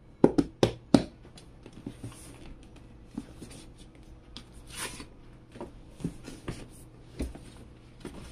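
Hands handling a cardboard box and its paper sleeve: three sharp taps in the first second, then scattered light knocks and a short rustling slide of the cardboard sleeve about five seconds in.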